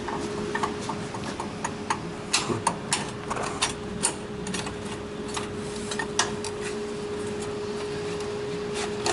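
Irregular clinks and knocks of metal hardware and tools being handled and rummaged through, over a steady even hum.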